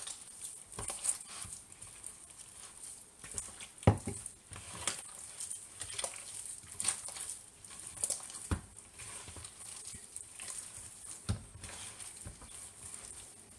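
Hands kneading and squeezing wet minced beef in a plastic bowl: irregular soft squelching and patting, with a few duller knocks, the loudest about four seconds in.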